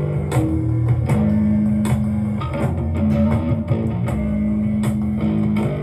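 Background rock music with guitar and bass over a steady beat.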